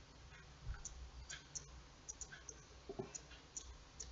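Faint, irregular small clicks and handling sounds from fingers holding and adjusting a small crocheted toy, a few per second, over a steady low hum.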